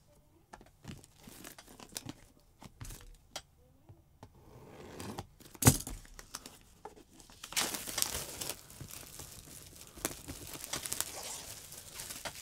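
Plastic shrink-wrap being torn open on a cardboard box and crinkled by hand. Scattered light handling clicks at first, a sharp snap about halfway, then steady crinkling and tearing through the second half.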